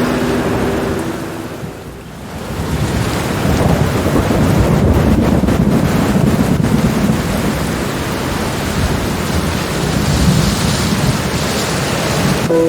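Steady rain with rolling thunder that swells about two seconds in and rumbles on for several seconds.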